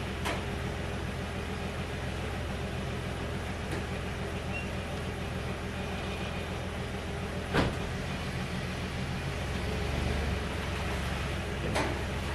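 1989 Dodge D100 pickup's engine idling steadily while the truck is eased back into place, its low sound swelling slightly near the end. A few sharp knocks sound over it, the loudest about halfway through.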